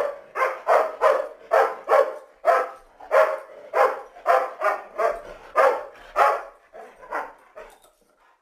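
A dog barking in a steady run, about two barks a second, with the last few barks fainter near the end.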